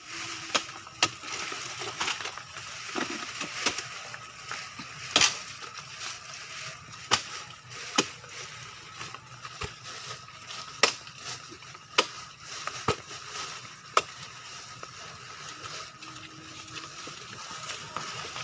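Irregular sharp knocks and clacks, about one every second or two, over faint steady background noise with a thin high hum.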